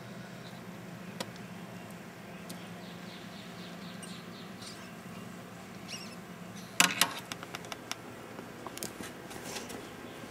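Faint, high, short squeaks of a newborn rat, about four a second, as an African bullfrog swallows it, over a steady low hum. About two-thirds of the way in come a few loud sharp clicks and knocks from handling, then scattered lighter clicks.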